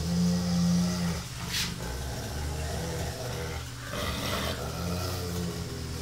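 Rottweiler making a low, drawn-out moaning rumble while being held and rubbed. It is loudest in the first second and comes again a few more times.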